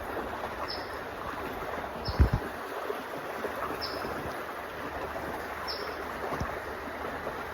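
Creek water running steadily, with a dull low thump about two seconds in and a fainter one near the end.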